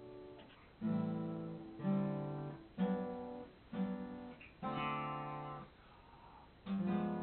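Acoustic guitar strummed one chord at a time, about once a second, each chord ringing out and fading before the next; after a pause of about a second, a last strum comes near the end.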